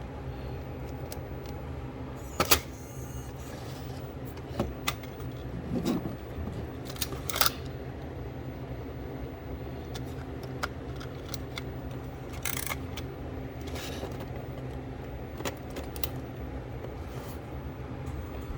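JVC compact VHS camcorder's buttons and tape transport clicking several times over a steady low hum, as fast forward is tried without working.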